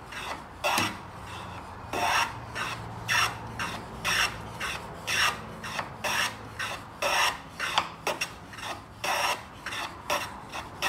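Hand plane shaving a bevel along the corner of a small piece of wood: short, rhythmic cutting strokes, about one or two a second.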